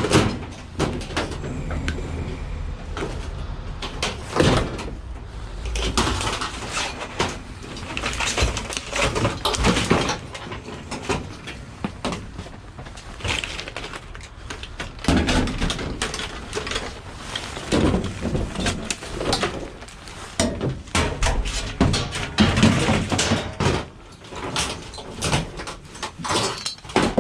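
Irregular knocks, clanks and scraping from scrap being handled and worked on by hand, in a busy run of separate impacts.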